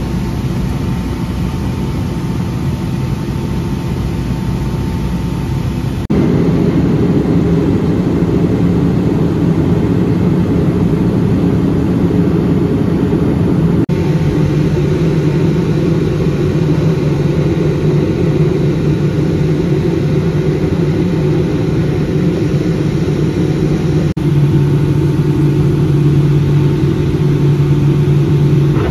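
Steady jet-engine and airflow roar heard inside the cabin of a Boeing 757-200 in flight on descent, with a low drone. It steps up abruptly in loudness about a fifth of the way in and shifts slightly twice more.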